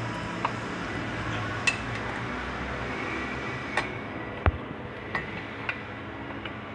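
Hand tools clinking against the cast-iron front axle and steering knuckle of a Kubota B16 tractor: about six sharp, irregularly spaced metal clinks over steady background noise.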